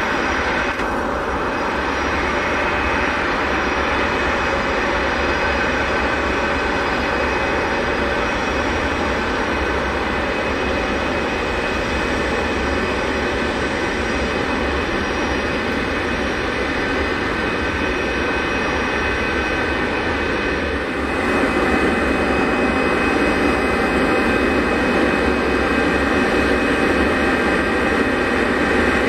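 Boeing 747SP taxiing close by, its jet engines running at taxi power with a steady whine of several held tones over the rush of the exhaust. It gets a little louder about two-thirds of the way through.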